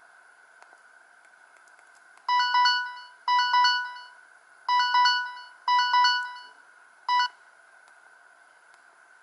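Samsung GT-E2100 mobile phone playing a ringtone through its small loudspeaker: a short, bright electronic melody in five quick phrases, starting about two seconds in and stopping after about seven seconds. A faint steady hiss sits underneath.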